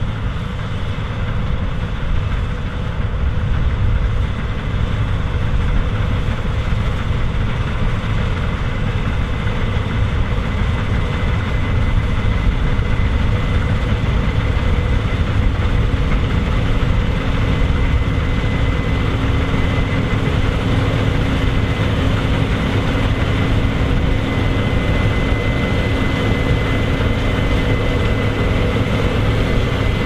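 Case IH Axial-Flow 9010 combine harvester threshing wheat: its diesel engine and threshing machinery run steadily under load, with a low rumble and a steady whine. It grows a little louder over the first few seconds as the machine comes nearer.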